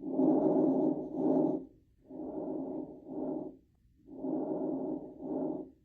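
Recorded lung breath sounds: one normal breath, a longer inhale then a shorter exhale, followed by two clearly quieter breaths of the same shape. The quieter breaths are diminished breath sounds.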